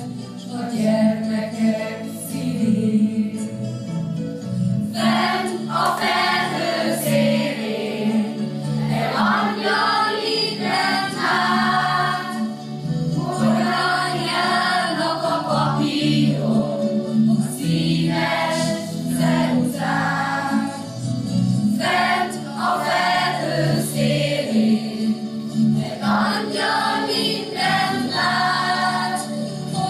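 A mixed choir of women and men singing a song together, with low notes held steadily beneath the changing melody.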